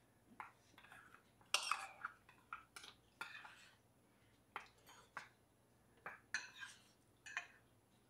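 Metal spoons clinking and scraping against small metal bowls while eating, in short scattered strokes. The loudest comes about a second and a half in.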